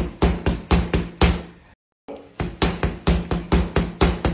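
Rapid gloved punches striking a Century free-standing punching bag, about four a second: a drill of repeated kidney-punch hooks to the side of the bag. The punches come in two runs with a short break a little under two seconds in.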